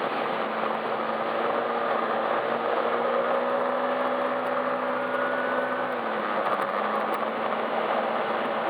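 Yamaha Majesty S scooter's single-cylinder engine running on the move under a steady rushing noise. The engine note climbs slowly, then drops about six seconds in.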